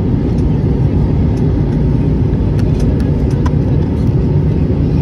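Steady low rumble of a jet airliner's cabin in flight, the engines and airflow heard from a window seat over the wing, during the descent toward landing.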